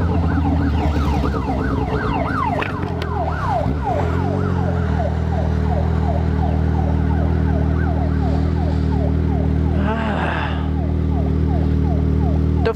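Yamaha XJ6's inline-four on a straight-through 4x1 exhaust with no silencer, slowing and then settling to a steady idle about five seconds in. Over it, a siren-like electronic tone repeats in quick falling sweeps, about three a second.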